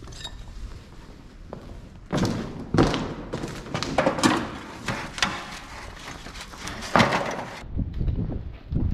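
Irregular knocks and thuds, a quick run of them from about two seconds in to just before the end.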